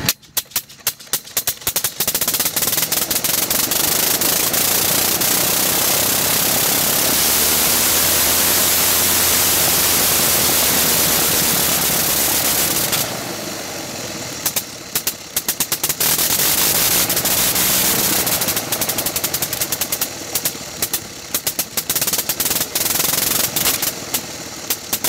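Gnome Monosoupape rotary aero engine hand-propped to life: it catches with a few separate sharp bangs, then runs with a fast, staccato crackle of firing strokes. Past the middle it drops for a few seconds to a lower, stuttering beat, then picks up to the fast crackle again, with brief dips.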